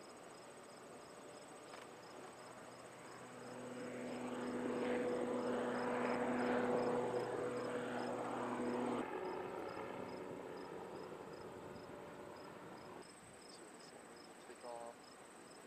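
A large military drone's propeller engine passing overhead: a steady droning hum that swells to its loudest in the middle and drops away suddenly about nine seconds in. Crickets chirp in a steady pulse, about twice a second, throughout.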